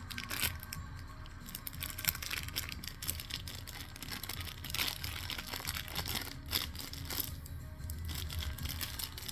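Paper and tape crinkling and rustling in irregular bursts as a homemade paper squishy stuffed with plastic bags is handled and taped.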